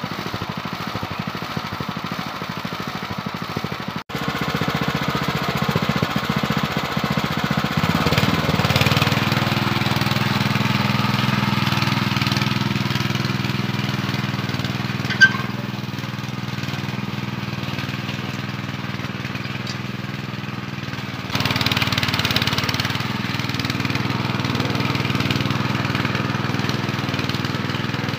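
Engine of a Zimbru 6559 7-horsepower walk-behind tiller running steadily under load as it pulls through heavy alfalfa-field soil while ploughing. The sound changes abruptly at about four and twenty-one seconds, and there is one sharp click about fifteen seconds in.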